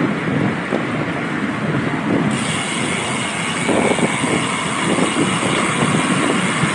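Steady rush of wind over the microphone with tyre and road noise from a bicycle ridden fast; a higher hiss joins about two seconds in.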